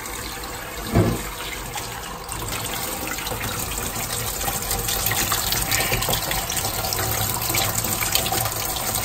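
Kitchen cold tap running at full flow into a stainless steel sink, the stream caught in a plastic flow-rate cup and spilling from its outlet into the sink, growing a little louder after about two seconds; the cup reads about 10 to 11 litres a minute. A short knock about a second in.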